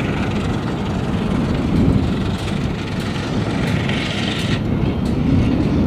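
Boeing 737 on its takeoff roll: a steady loud rumble of engines and wheels on the runway, with a few faint clicks.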